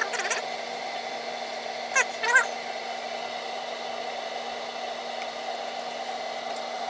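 Water in an electric brew kettle just short of boiling, heated by a 5500 W Camco element: a steady rushing noise with a faint low hum. Two short chirp-like sounds come about two seconds in.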